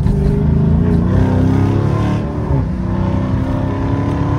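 Dodge Charger SRT 392's 6.4-litre HEMI V8 accelerating hard, heard from inside the cabin. The revs climb steadily, then fall near the end as the transmission shifts up.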